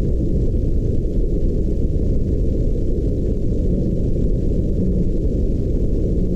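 Underwater hydrophone recording of a baleen whale: a loud, deep, noisy sound with nothing above the low range, and a faint low moan-like tone about three to five seconds in.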